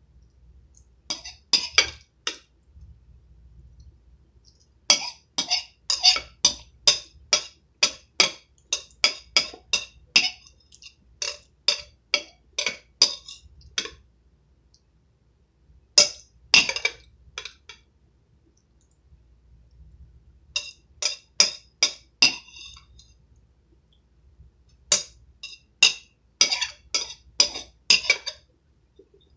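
Table knife clinking and scraping against a plate as filling is scooped up onto bread: quick runs of sharp taps, several bursts with short pauses between.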